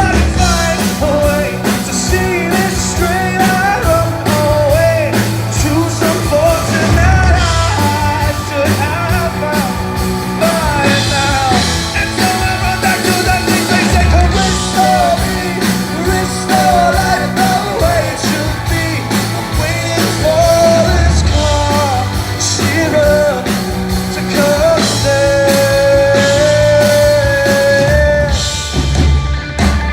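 A rock band playing live, with a singer carrying the melody over guitar, bass and drums, loud and without a break.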